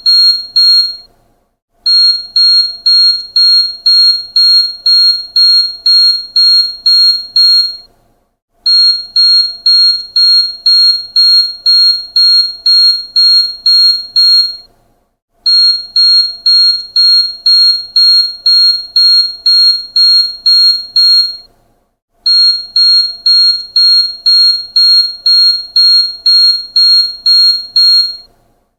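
Car seat belt warning chime beeping: the belt is unfastened. A high-pitched beep repeats about two and a half times a second in runs of about six seconds, with a short pause of under a second between runs.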